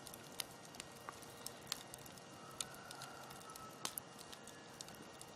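Wood campfire crackling: irregular sharp pops and snaps over a faint steady hiss, with the strongest pops a little under two seconds in and again near four seconds.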